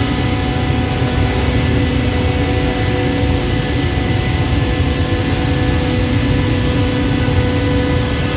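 Automatic CNC scroll saw running steadily: an even motor hum and whine with a rough low rumble and no change in pace.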